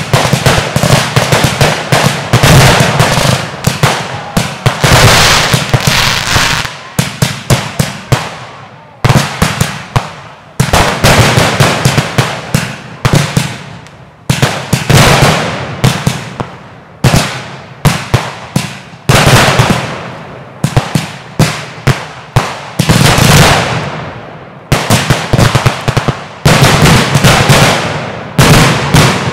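Fireworks display: rapid volleys of aerial shells bursting with sharp bangs and crackle, one after another in dense clusters with brief lulls between them.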